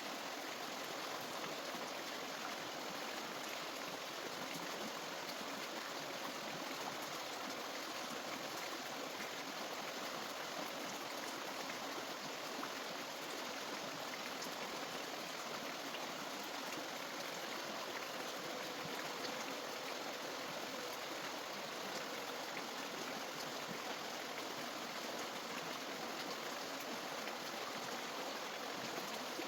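Steady rushing of running water, like a stream, unchanging throughout.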